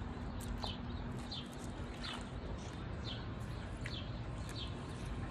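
A bird chirping over and over, short high calls about every three-quarters of a second, over a steady low background rumble.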